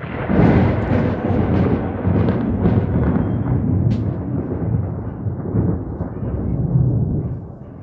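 A loud thunderclap breaks in suddenly and rolls on as a long, deep rumble for about seven seconds, easing off near the end.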